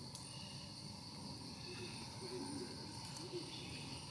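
Outdoor forest ambience: a steady high insect drone, with a few faint low sounds about halfway through.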